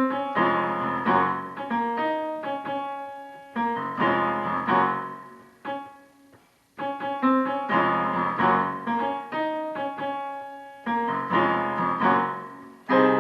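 Piano playing a gospel chord progression in D flat, mostly slash chords, with struck chords ringing and decaying between attacks. There is a short break about six and a half seconds in before the playing resumes.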